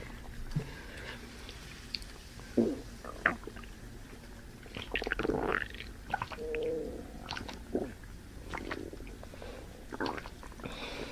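Scattered short gurgling and belching noises from a person's throat, after drinking Sprite on top of banana; the longest comes about five seconds in.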